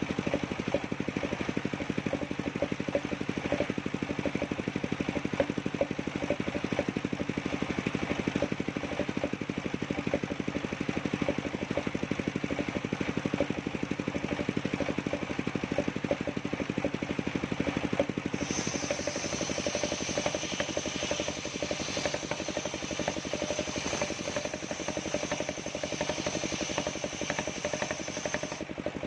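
Engine of a portable circular-saw sawmill running steadily with a fast even pulse. About two-thirds of the way through, a high steady whine joins it.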